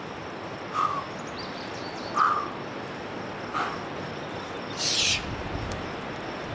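A rock climber's short effort grunts, three of them, then one sharp hissing exhale about five seconds in, as he pulls through hard moves on the route.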